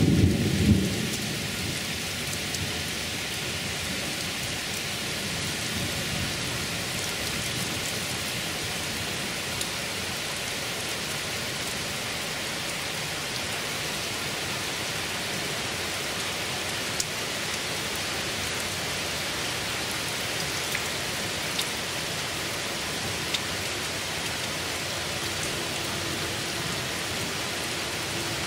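Heavy rain falling steadily, a dense even hiss of rain on pavement and trees. A thunder rumble dies away in the first second, and a few isolated sharp ticks of drops stand out later.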